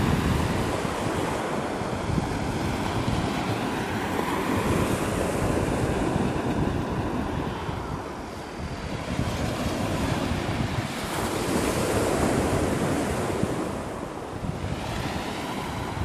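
Small sea waves breaking and washing up a pebble beach, the surf swelling and ebbing, with dips about halfway through and again near the end and a hissing rush of backwash around two-thirds in. Wind buffets the microphone with a low rumble.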